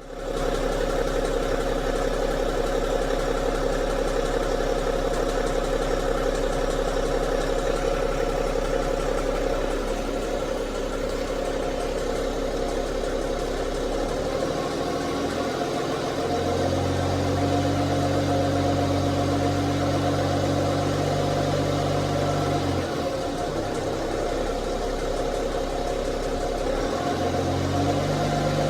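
BMW 530d's inline-six diesel engine idling with a ticking noise. A deeper low hum comes in about halfway through, drops away, and returns near the end.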